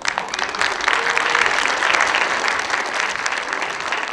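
An audience of students and parents clapping after a class performance, a dense, steady applause that starts right as the performance music ends.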